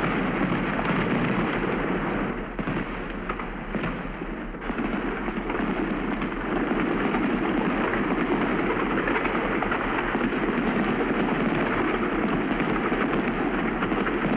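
Fireworks display: a dense, continuous crackling and popping, briefly quieter about two seconds in.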